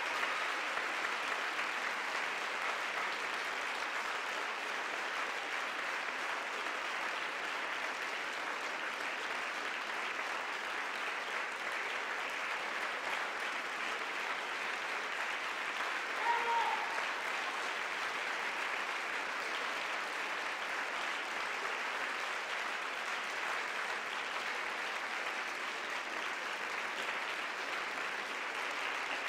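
Theatre audience applauding steadily at a ballet curtain call. One short pitched sound rises above the clapping about halfway through.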